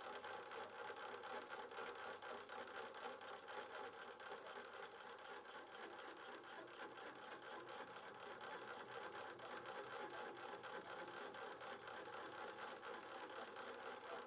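Thin slitting saw blade spinning on a machine spindle and cutting a slit into a small brass pin: a steady mechanical whir, with a fast, even pulsing hiss that sets in about two seconds in.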